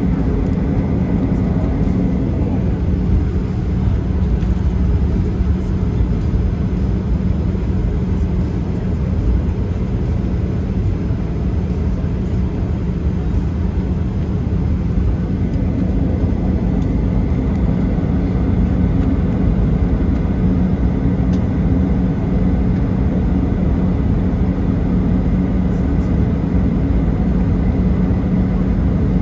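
Inside a jet airliner's passenger cabin: steady low engine rumble with a constant hum.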